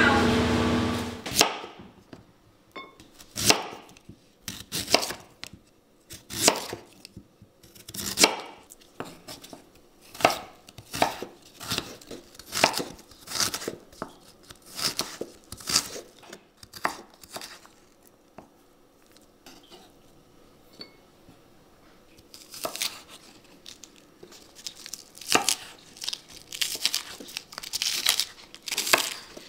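Knife chopping on a cutting board: separate sharp strikes, about one or two a second, with a few seconds' pause about two-thirds through and quicker strikes near the end. A louder sound with a steady hum dies away in the first second or so.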